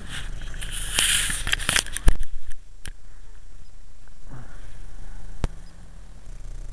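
Rustling and handling noise close to a body-worn camera's microphone, with scattered clicks, a loud thump about two seconds in and another click later, over a steady low rumble.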